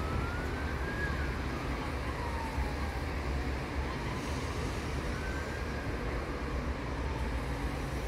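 Small waves washing over a rocky shore as a steady low rumble, with a faint siren wailing slowly up and down twice.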